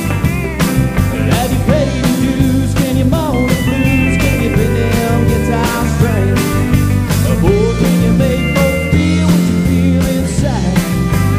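Live country-rock band playing an instrumental break: bass guitar and drum kit keep a steady beat under an electric lead line with bent, gliding notes.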